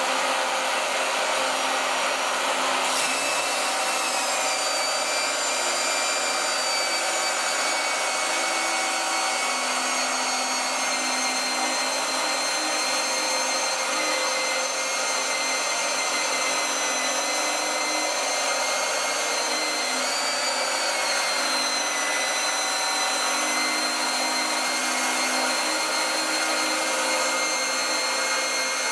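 A small electric motor running with a steady high-pitched whine. Its pitch shifts slightly about three seconds in and again about twenty seconds in.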